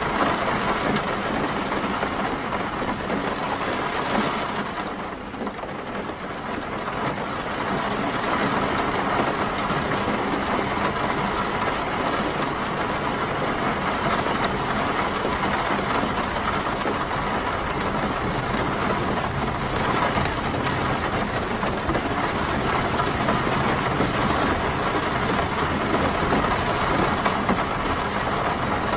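Steady rain falling on and around a car, heard from inside the car as a dense, even hiss that eases briefly about five seconds in.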